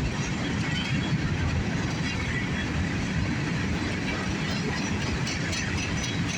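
Mixed freight train rolling steadily past, its cars' steel wheels running over the rails.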